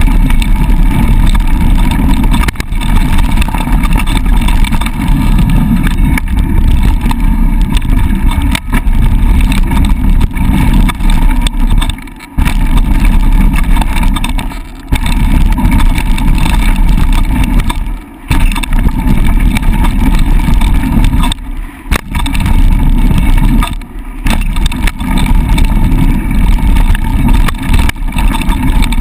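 Loud wind buffeting on a camera-mounted microphone during a fast downhill mountain bike ride on a dirt trail, mixed with the rumble of tyres on dirt and rattles and knocks from the bike. The noise drops away briefly several times.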